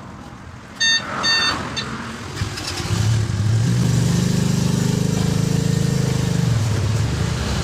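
Two short horn beeps, then a vehicle engine running loudly and steadily from about three seconds in.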